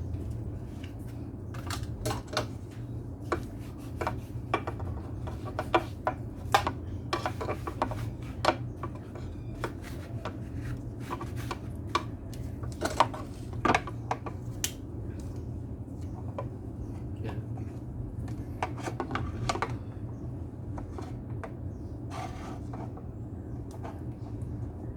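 Scattered clicks, taps and light scraping of small metal and plastic parts being handled during a speaker repair, over a steady low hum.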